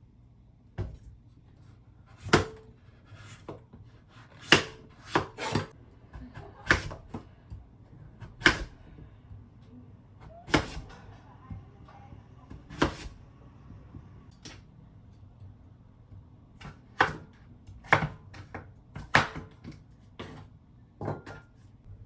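Knife chopping on a cutting board with slow, irregular strokes, a sharp knock every second or two with some longer pauses.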